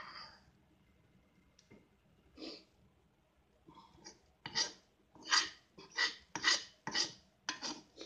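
A run of short rasping strokes, about two a second, starting about halfway through, after one earlier stroke.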